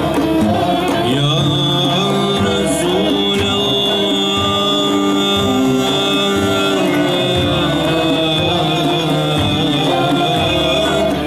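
Men's choir singing a Turkish ilahi (Islamic hymn), holding long notes, over a beat on bendir frame drums with a long-necked saz accompanying.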